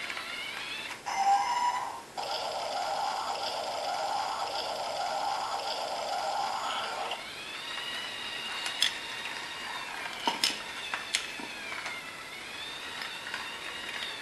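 LEGO DUPLO 10874 battery steam train stopping on its blue refuel action brick: its electric motor whine cuts off about a second in, a short loud sound effect plays, then a refuelling sound effect runs from its small speaker for about five seconds. The motor then whines back up as the train drives off, with a few sharp clicks of the plastic train on the track.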